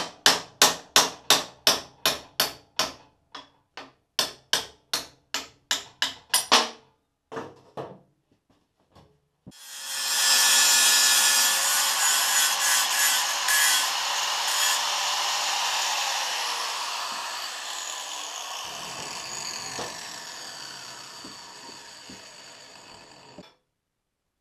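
Hammer blows on metal, about three a second for several seconds, then an angle grinder cutting through a steel frame bracket, loud at first and slowly fading before it stops.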